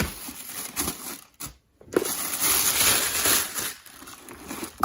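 Packaging being handled and crinkled as sneaker accessories are unpacked. There is rustling with short crackles, a brief pause about a second and a half in, then a longer, denser stretch of crinkling.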